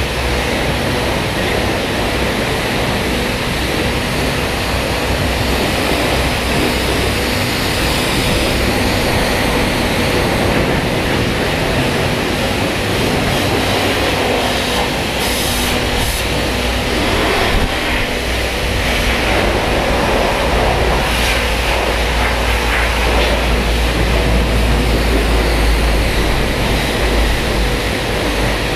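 High-pressure water jet from a car-wash lance spraying onto a motorcycle and the wet floor: a steady hiss with a low hum underneath that grows stronger in the second half.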